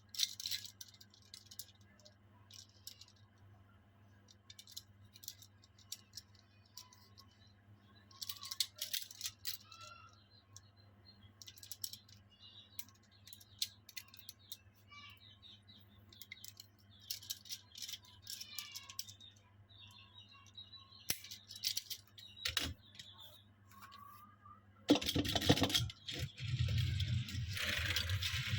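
Small die-cast toy cars and their packaging being handled: scattered light clicks, clinks and rattles, with a louder, denser stretch of handling noise near the end.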